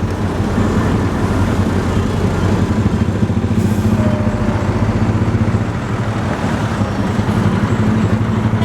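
Large diesel bus engine running, a steady low rumble.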